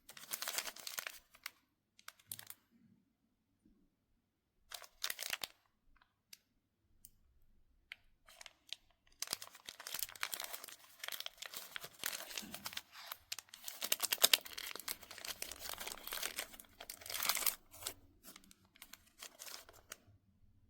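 Plastic wrappers of mini chocolate bars crinkling and tearing open. It starts with a few short crackles, then a long stretch of crinkling and tearing from about nine to eighteen seconds in, tapering to small crackles.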